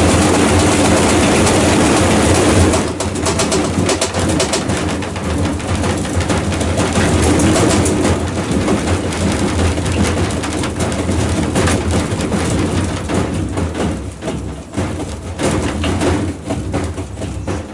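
Outdoor household washing machine running with a roar: a steady low hum under dense rattling. It drops in level about three seconds in and eases off further toward the end.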